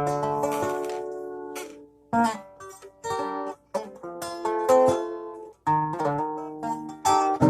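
Plucked string instrument, such as a guitar or ukulele, playing a run of strummed and picked chords; each chord starts sharply and rings out before fading.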